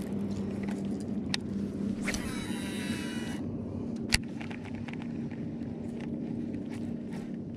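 A steady low motor hum. About two seconds in comes a high whirring whine that falls in pitch over about a second and a half, and about four seconds in there is one sharp click, among lighter ticks.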